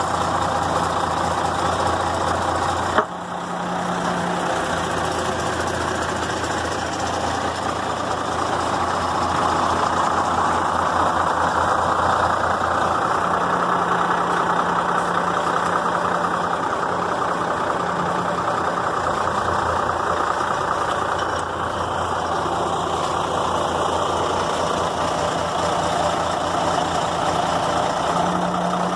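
1996 Ford L8000 truck's engine running steadily while its hydraulic crane is in use, with a sharp click about three seconds in.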